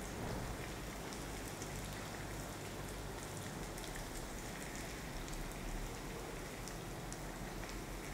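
Bhatura deep-frying in hot oil in a kadhai: a steady sizzle with fine crackling as the dough puffs up in the bubbling oil.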